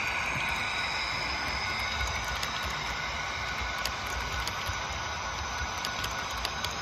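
Model train's passenger cars rolling past on the layout track: a steady running rumble and hiss with wheels clicking irregularly over the rail joints. A faint high whine fades in the first second or so.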